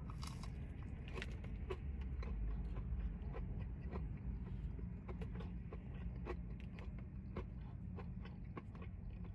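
Close-up chewing and biting of a breaded chicken tender: many small, irregular crisp clicks over a steady low hum.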